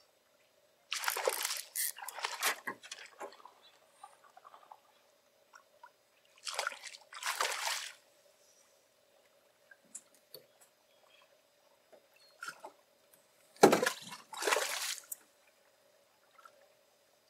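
Water splashing in three bursts, each lasting a second or two: once near the start, again about seven seconds in, and loudest about fourteen seconds in. It is a hooked fish thrashing at the surface as it is played up to the side of the boat.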